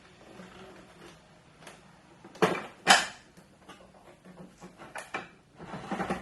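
Hands handling a large boxed toy figure and its packaging: scattered light clicks, two sharp knocks a little past the middle, and a short rustle near the end.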